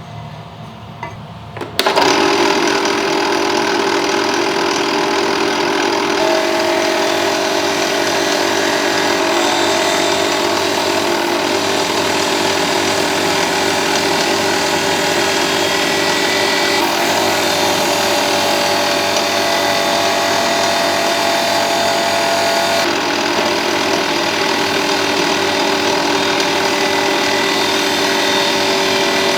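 Power sander starting about two seconds in, then running steadily as it grinds into a model giant centipede: a steady motor hum under a rough abrasive scraping.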